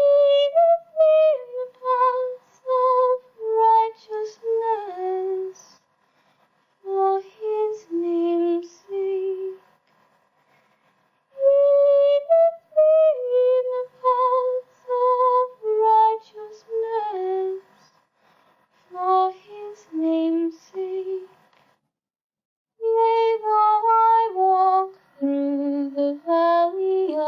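A cappella singing: an unaccompanied voice sings a slow melody in short phrases, with brief silent pauses between them.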